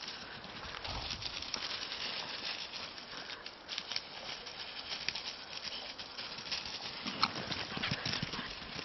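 Dry fallen leaves rustling and crunching under running dogs' paws and a walker's feet, a dense crackle of many small steps, with louder scuffling and thuds near the end.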